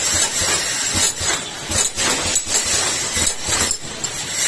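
Inline six-head PET jar foil sealing machine running: a steady hiss under a string of irregular knocks and clinks, a few a second, as the plastic jars jostle along the conveyor.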